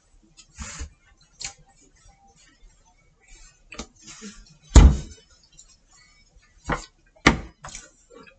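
Handling noises as containers and a plastic bottle are picked up and set down on a kitchen counter: scattered light clicks and rustles, a heavy thump about five seconds in, and two sharp knocks about half a second apart near the end.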